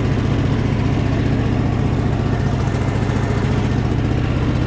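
Small engine running steadily at an even speed, with a fast, regular pulse.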